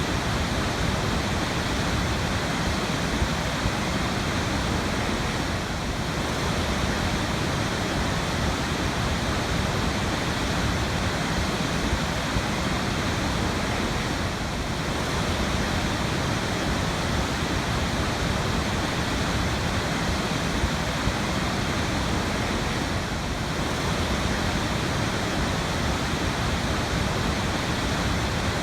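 Waterfall: a steady, dense rush of falling water with no let-up, dipping slightly in level about every eight or nine seconds.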